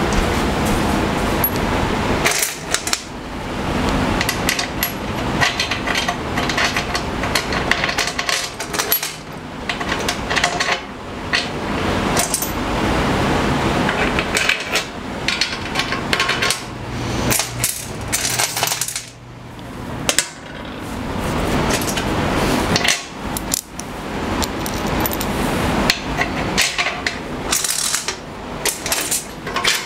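Small metal fasteners, bolts and nuts, clinking, rattling and knocking as they are handled and sorted on a table saw top, in a busy run of irregular clicks with a few short pauses.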